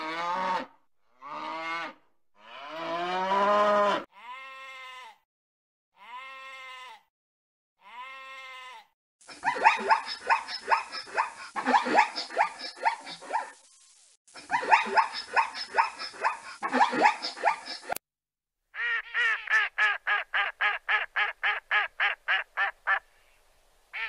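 A run of animal calls. First young calves give a string of bleating calls, then zebras bark in two long, rapid, harsh series, and near the end comes a fast, even string of about fourteen short calls.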